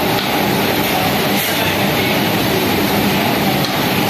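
Loud, steady rumble and hum of industrial laundry machinery running.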